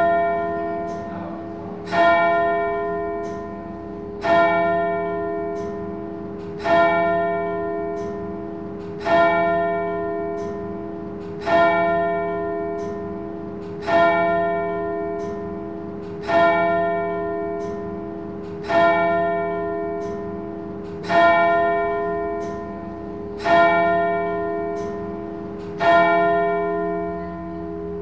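A single church bell tolling the same note about every two and a half seconds, about a dozen strikes. Each strike rings out and fades, while the bell's low hum carries on between strikes.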